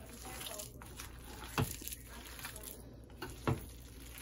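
A bare hand kneading and squeezing a wet chicken kabab mixture in a plastic bowl: soft squishing, with two sharp clicks about two seconds apart.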